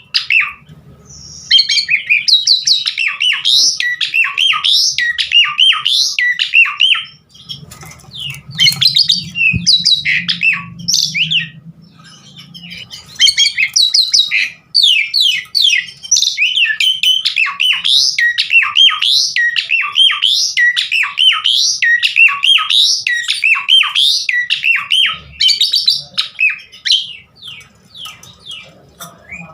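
Asian pied starling (jalak suren) singing a fast, varied song of whistles and chattering notes, with short breaks about 7 and 12 seconds in.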